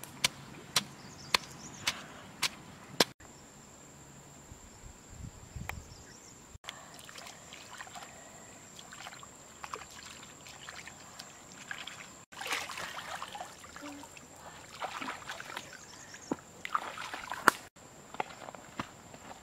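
Stone pestle striking red chilies in a stone mortar, six sharp knocks about two a second, stopping after about three seconds. Later, light splashing and trickling as a woven basket is dipped and swirled in a pond, then grass rustling and footsteps near the end.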